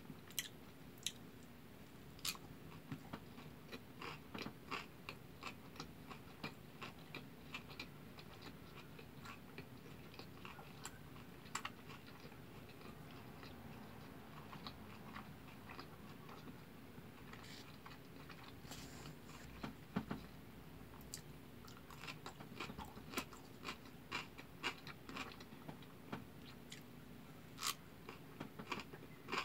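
A person chewing a big mouthful of kimbap, seaweed-wrapped rice rolls, with the mouth closed. The chewing is faint, with scattered small clicks and wet mouth noises that come in clusters.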